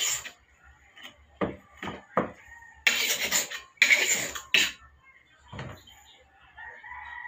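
A long steel knife blade scraped in quick strokes across a sharpening stone: about eight hissing swipes, two of them longer near the middle. A rooster starts crowing near the end.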